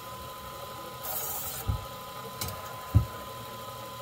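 Knife on a belt sharpener: one short hissing pass of the blade across the belt about a second in, over a steady high tone. Three dull knocks follow, the last, near three seconds in, the loudest.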